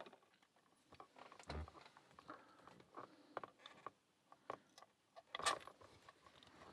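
Faint scattered clicks and taps of a Master Lock 130 padlock and its picks being handled, with one sharper click about five and a half seconds in.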